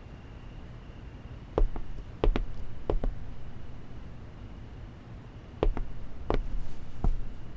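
Footsteps on a hard floor: two short runs of about three steps each, roughly two-thirds of a second apart, over a quiet room.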